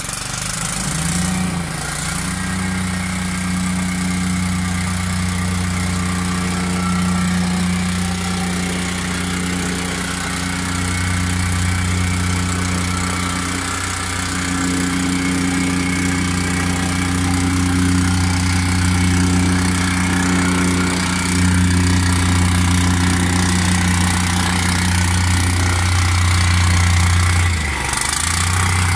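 Petrol-engined vibratory plate compactor running steadily as it compacts the sand base for paving slabs, with a brief dip in the sound about a second before the end.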